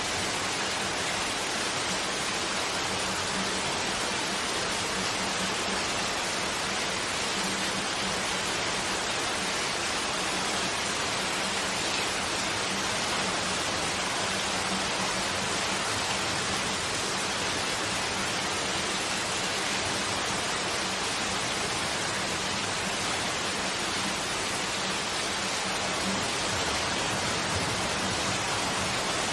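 Steady rain falling on a forest campsite, splashing into puddles and onto a tarp, as an even, unbroken hiss.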